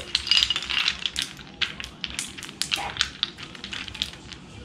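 Ice cubes tipped from a plastic cup onto potatoes in a stainless-steel bowl of cold water, clinking and rattling in a string of irregular clicks as a hand spreads them over the top.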